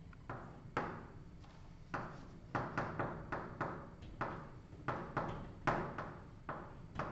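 Chalk writing on a blackboard: a quick, irregular run of short taps and scrapes, about a dozen strokes, as letters are chalked in.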